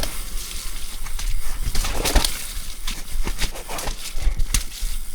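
Mountain bike riding down a wet, rocky, technical trail: irregular knocks and rattles from the bike striking roots and rocks, over a steady low rumble and hiss of tyres and movement.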